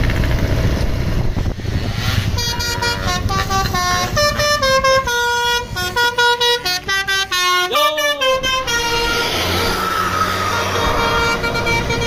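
A tour bus's 'basuri' telolet musical horn playing a quick tune of stepped notes that jump up and down, starting about two seconds in and stopping about nine seconds in. Engine and motorcycle noise runs underneath.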